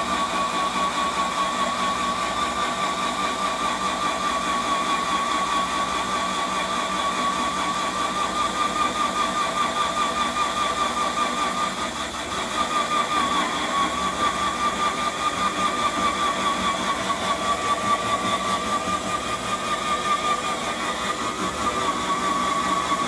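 Core drill motor running steadily under load as it bores through a concrete grade beam. It gives a wavering high whine with a fast pulsing in loudness, which dips briefly about halfway through.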